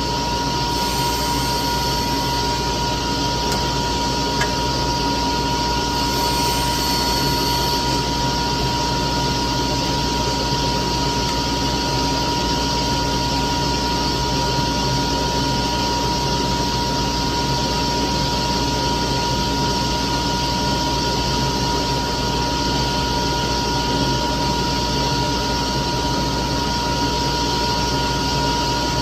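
A machine running steadily with an even whirring noise and a steady high-pitched tone, unchanging throughout.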